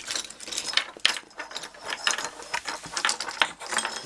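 Small metal tools clinking and rattling against each other as a hand rummages through them for a pair of tweezers, in a quick, irregular run of clicks.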